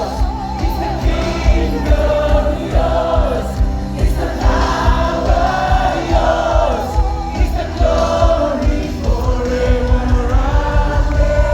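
Choir of several voices singing a gospel song over loud music with a heavy, pulsing bass.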